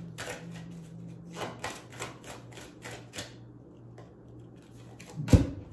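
Runes being shuffled in the hands, giving a quick run of light clicks, about four a second, that stops after about three seconds. A single heavier thump follows about five seconds in.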